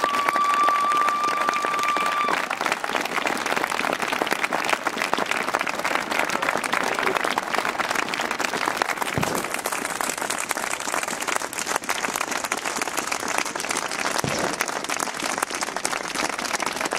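Crowd applauding steadily, with a steady high tone held over the clapping for the first two seconds or so.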